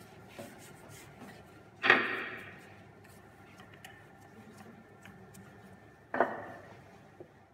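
Wooden rolling pin working puff pastry dough on a floured granite counter: a low rubbing of the rolling strokes, with two loud sudden strokes that fade quickly, about two seconds in and again near the end.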